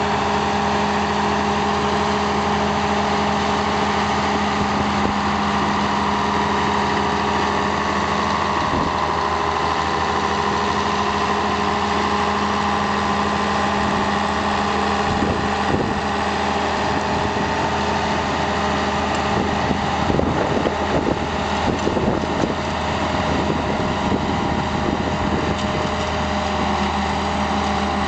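Diesel engines of two crawler dozers, an Allis-Chalmers HD11 and a Cat D6, running steadily at low speed. A few knocks and clatters come about halfway through, and a cluster comes around two-thirds of the way in.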